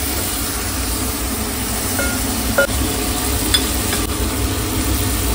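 Chopped onion, garlic and tomato with whole red chillies sizzling steadily in hot oil for a tadka, the onions browning, while a ladle stirs them, with a few light clicks of the ladle against the pot.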